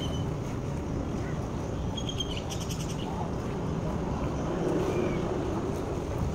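Wind rumbling and buffeting against the microphone, with faint water movement from a swimmer in the pool. A few short high chirps come about two seconds in, followed by a quick trill.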